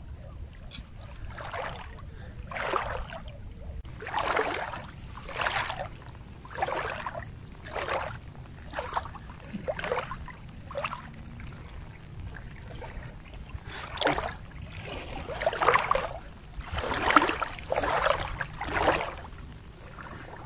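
Shallow seawater sloshing with steps of someone wading, a short splash about once a second with a pause of a few seconds midway, over a low steady rumble.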